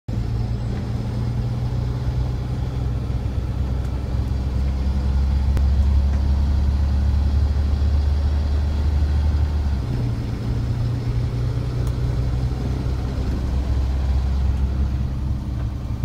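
Steady low engine and road rumble of a car heard from inside the cabin while driving, its low hum changing pitch about ten seconds in.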